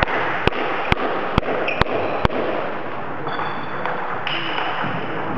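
Table tennis ball bounced five times in quick, even succession, a bit over two bounces a second, as a player readies to serve, over steady hall noise.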